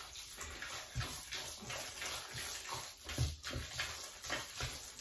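A spatula stirring a thick, wet tuna-and-mayonnaise mixture in a stainless steel bowl: soft, irregular wet strokes, several a second.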